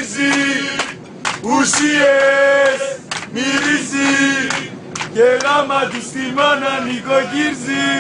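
A group of male football supporters singing a chant together inside an airliner cabin, in short phrases of held notes with brief breaks between them.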